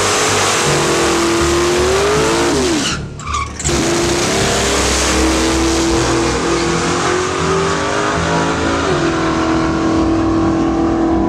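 Drag car's engine held at high revs in a burnout, its rear tyres spinning and squealing on the track. The engine note holds steady, bends in pitch about two and a half seconds in, and does so again near the end.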